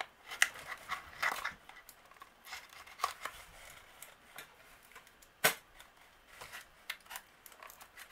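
Fingers prying and scraping at the tight tuck flap of a small cardboard box, with scattered scratches and light clicks and one sharp snap about five and a half seconds in.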